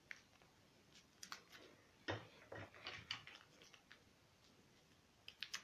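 Faint, scattered clicks and taps of a small plastic hand tool being worked against a plastic network wall box, loudest about two to three seconds in, with a quick run of clicks near the end.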